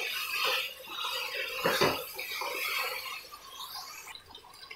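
Wooden spatula scraping and knocking against a metal karahi as chicken masala is stirred and fried, with one louder knock about two seconds in. It grows quieter near the end.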